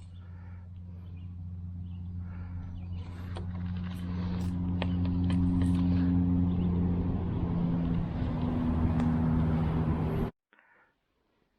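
A motor vehicle's engine hum growing steadily louder as it draws near, with a few light clicks over it, then cutting off suddenly about ten seconds in.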